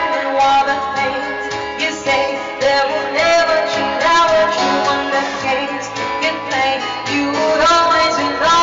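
Music: a woman singing with instrumental backing that includes guitar.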